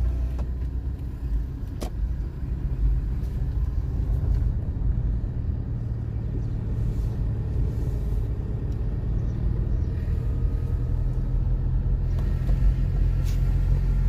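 A car's engine and tyre noise heard from inside the cabin while driving, a steady low rumble, with a single sharp click a little under two seconds in.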